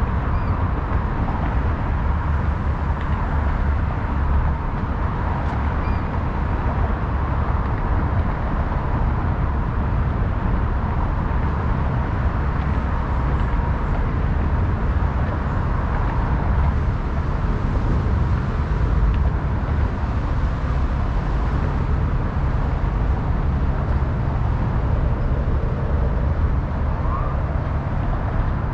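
Steady road-traffic noise, a continuous wash of passing cars with a heavy low rumble. A siren begins faintly near the end.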